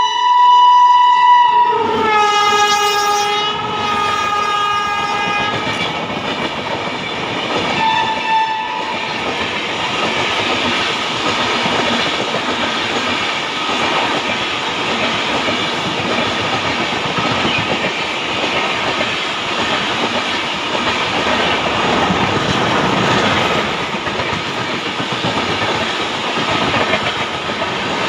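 A WAP7 electric locomotive's horn sounds loud as it passes at speed, its pitch dropping about two seconds in as it goes by, with a short second blast a few seconds later. Then the express coaches rush past with a steady clatter of wheels on the rails.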